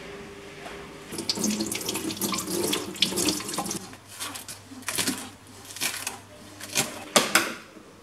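Kitchen tap running into a sink, starting about a second in, then a series of sharp clinks and knocks as things are handled at the sink.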